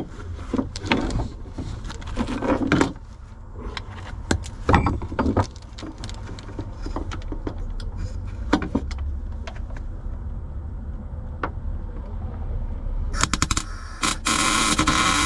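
Scattered metal clinks and scrapes, then about two seconds before the end a welding arc strikes and crackles steadily as a nut is welded onto the stub of a sheared lag bolt.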